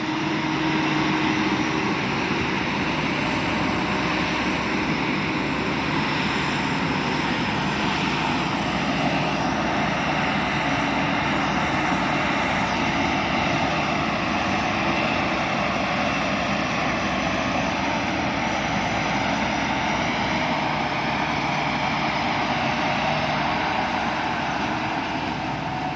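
Sakpattana Amata rice combine harvester running steadily as it reaps and threshes, a continuous engine and machinery drone, working slowly through lodged (flattened) rice.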